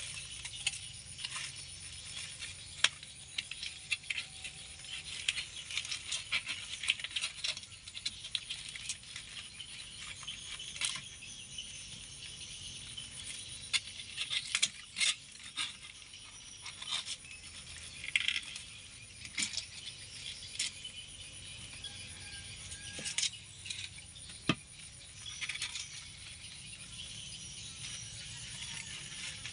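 A knife scraping the large, hard scales off an iced red arowana: irregular sharp clicks and ticks as the scales catch and snap loose, coming in bursts with short pauses, over a light scratchy hiss.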